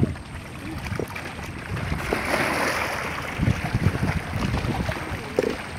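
Wind buffeting the microphone over sea water washing against breakwater rocks, with a broad rushing swell of noise about two seconds in.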